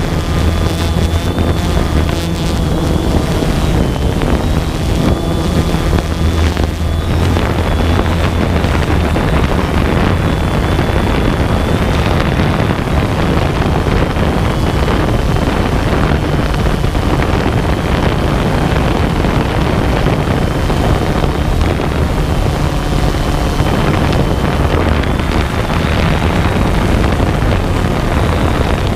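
DJI Phantom 2 quadcopter's motors and propellers running steadily, heard from the GoPro mounted on it: a loud low hum with a thin high whine that wavers slightly in pitch, mixed with wind buffeting the microphone.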